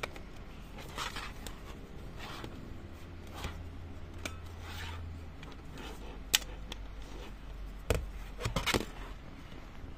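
Plastic body of a compact 35 mm film camera being handled: light rubbing and scattered clicks, with sharper snaps about six and eight seconds in and a quick cluster of clicks near the end as the back cover is unlatched and opened.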